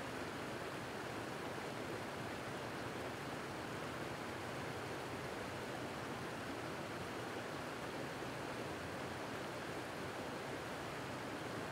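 Water from a broken underground water main gushing up through the street surface and spreading over the flooded road, a steady rushing churn.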